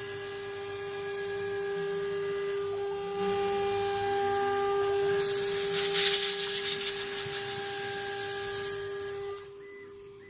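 CNC router's water-cooled spindle running with a steady high whine. About five seconds in, a loud hiss joins it for about three and a half seconds, and the whole sound drops off about a second before the end.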